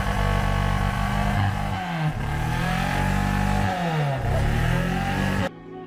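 Car engine running, its pitch dipping and recovering twice, then cut off abruptly near the end.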